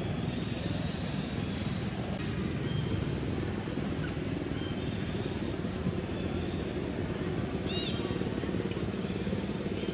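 Steady low rumbling background noise, with a few faint short high chirps about eight seconds in.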